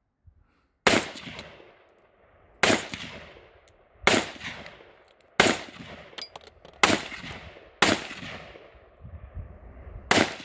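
AR-15 rifle fired as seven single shots at an uneven pace, one every one to two seconds, each sharp crack trailing off in an echo.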